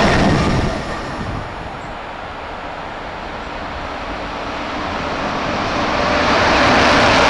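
A passing train's running noise dies away in the first second or so, then an approaching freight train's rumble of wheels on rails grows steadily louder over the last few seconds.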